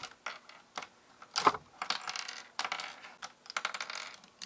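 Small hard plastic pieces of a Rubik's cube clicking and clattering as they are handled, with a sharper clack about one and a half seconds in and quicker rattling after that.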